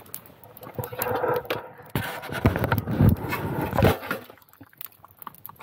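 A thin metal sheet being handled, clattering and scraping in irregular knocks and rattles, loudest for a few seconds in the middle.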